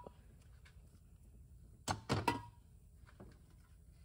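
Three quick metal knocks with a short ring about two seconds in, then a fainter tap, as steel transmission parts are handled against the inside of a Ford 4R70W transmission case.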